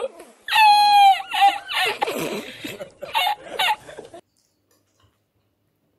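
A man's high-pitched laughter in repeated bursts, from an inserted laughing-man meme clip, cutting off suddenly about four seconds in.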